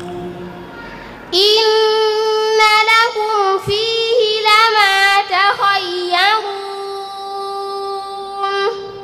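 A girl reciting the Qur'an in a melodic, chanted style, coming in after about a second and a half of quiet. Her voice winds through quick ornamental pitch turns, then holds one long steady note and ends with a short upward turn.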